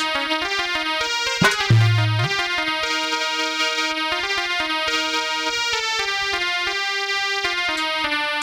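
Electronic keyboard playing a slow instrumental melody in held, sustained notes that step from pitch to pitch. About a second and a half in there is a sharp click, followed by a short, loud low tone.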